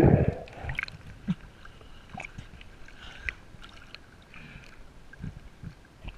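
Water sloshing and splashing around a camera at the water's surface, loudest right at the start, then faint lapping with scattered small clicks and knocks.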